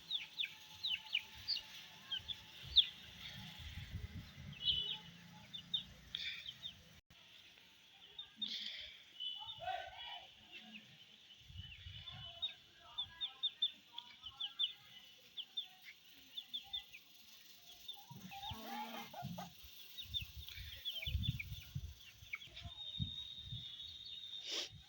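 Baby chicks peeping: a steady stream of short, high cheeps, some in quick runs, with occasional low bumps and rumbles.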